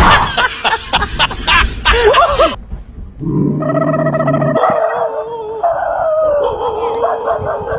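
A startled dog yelping in a quick run of short, high cries that rise and fall, about two and a half seconds long. A second later comes a long, wavering tone that glides slowly in pitch.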